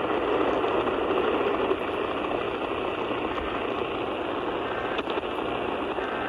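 Weather radio receiver hissing with steady static from its speaker, with no voice or alert tone.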